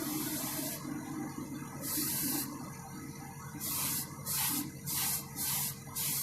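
Airbrush spraying paint in hissing bursts: two longer passes, then quick short bursts about twice a second from about halfway on. A small compressor hums steadily underneath; the owner says it is about worn out.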